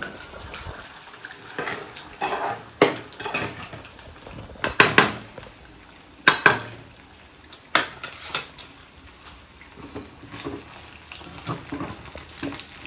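Metal utensils clinking and knocking against pots and pans in a series of irregular, sharp clinks, with a faint steady sizzle of frying underneath.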